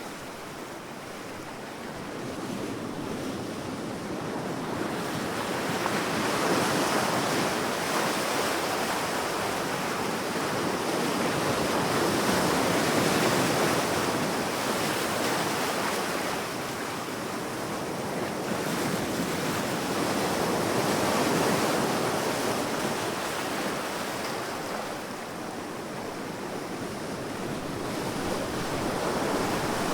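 Sea waves washing onto a beach in a steady hiss of surf, swelling and ebbing slowly every several seconds.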